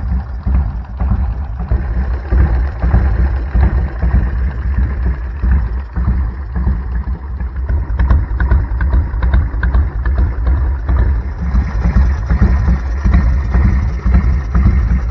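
Big Dog chopper's 107-cubic-inch V-twin idling through its exhaust pipes: a deep, steady, pulsing rumble.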